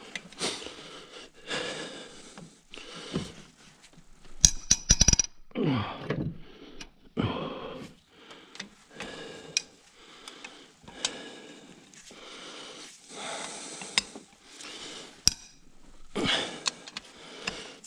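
Metal tools and engine parts being handled during an engine teardown: scattered clinks and knocks, with a quick cluster of metallic clicks about four and a half seconds in.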